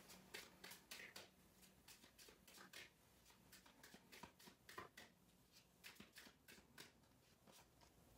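Faint, quick clicks and flicks of a mini oracle card deck being shuffled and handled by hand.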